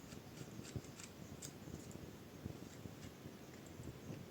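Faint, irregular small metallic clicks of small screws being turned out of a laptop hard drive's mounting bracket.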